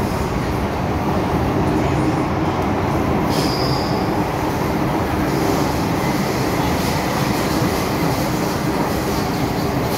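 Interior running noise of an MTR M-Train metro car in motion: a steady rumble of wheels on rail. A brief high squeal comes in about three and a half seconds in.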